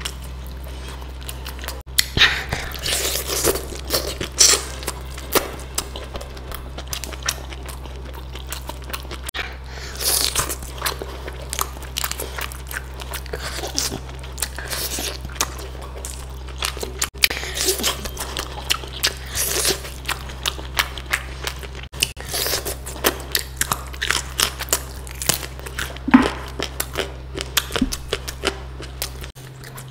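A person eating close to the microphone: crunchy bites and chewing in irregular clusters, with quieter chewing between them.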